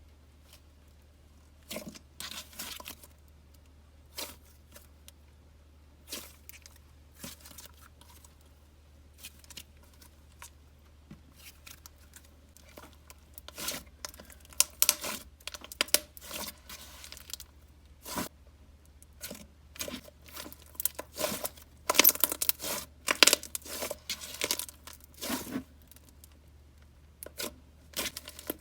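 Hands playing with a soft butter slime swirled with clear slime, giving irregular sizzly crackles and pops. The crackling is sparse at first and grows denser and louder after about halfway.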